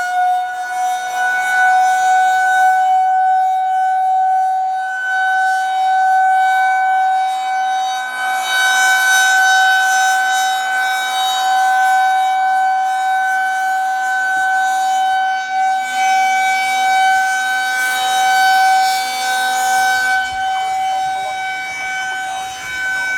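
Federal Signal Model 2001 rotating outdoor warning siren on a water tower sounding its steady alert tone, loud and holding one pitch after a slight final rise at the start, swelling and easing as the rotating head turns. Heard from inside a car.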